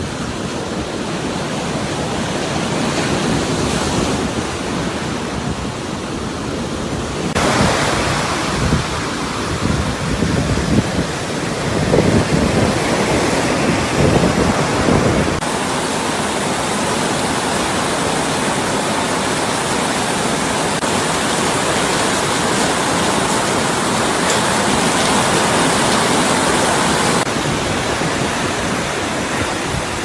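Stormy seaside noise: rough surf and strong wind make a steady rushing sound. Irregular gusts buffet the microphone between about 8 and 15 seconds in.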